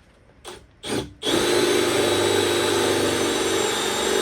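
Two short bursts, then, about a second in, a power drill starts and runs steadily at speed, boring a 3/8-inch dowel hole into wood through a doweling jig.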